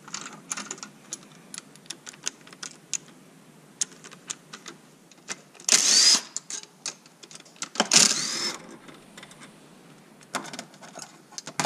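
Metal clinks of sockets and bolts on a steel workbench, and a cordless drill run in two short bursts with a rising whine, about halfway through and again two seconds later, as it spins bolts out of the supercharger's front snout.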